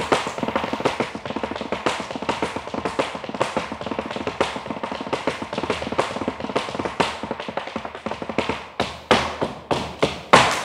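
Flamenco zapateado: fast planta-and-tacón footwork, sole and heel of flamenco shoes striking a dance platform in a dense run of quick taps, with handclaps (palmas) keeping time. Near the end the strikes thin out into fewer, louder stamps.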